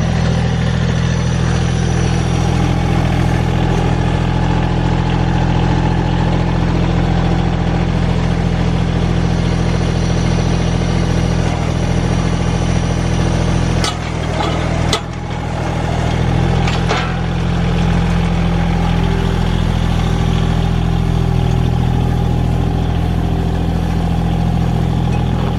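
A vehicle engine idling steadily, with a few sharp knocks about halfway through.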